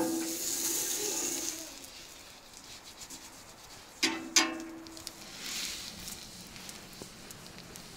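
Fat sizzling and being rubbed across a hot cast-iron griddle plate with metal tongs: a ringing metal clank at the start, two sharp clanks of the tongs on the plate about four seconds in, then scraping.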